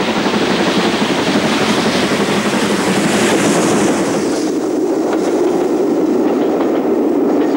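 Steam locomotive hauling a passenger train passes close by. Its exhaust and steam hiss fill the first four and a half seconds or so, then give way to the steady rumble and light clatter of the coaches' wheels over the rail joints.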